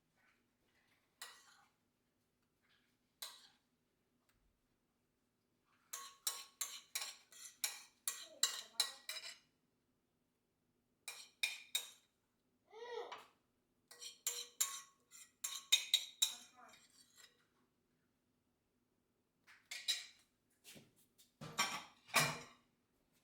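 A metal utensil clinking rapidly against a bowl in runs of about three to four strokes a second, with pauses between the runs, as when stirring or whisking pancake batter. A couple of heavier knocks come near the end.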